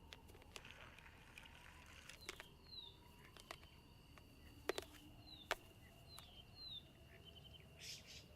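Faint sound effects: a few sharp clicks, the loudest two about a second apart near the middle, and several short high falling chirps over a faint steady high tone.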